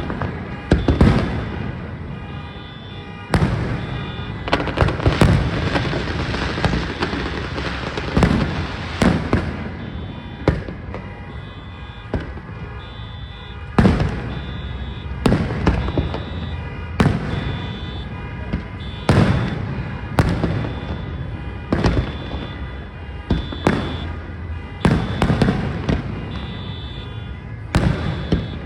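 Aerial fireworks display: shells bursting in a string of booms and crackle, one every second or two, over music.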